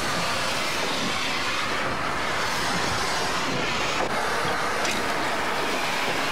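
Steam locomotive blowing off a steady hiss of steam around its cylinders as its drive wheels begin to turn slowly.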